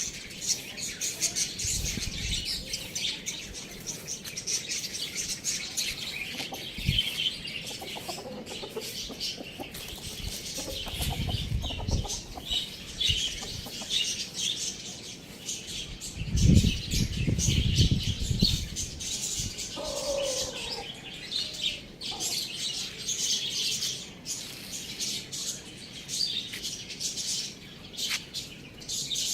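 Pet birds chirping and chattering without a break, with bouts of wing-flapping, the loudest just past the middle, and one short lower call about twenty seconds in.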